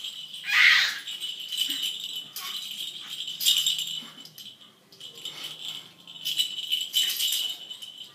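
A baby's plastic toy rattle being shaken in irregular bursts of rattling, with a louder burst about half a second in.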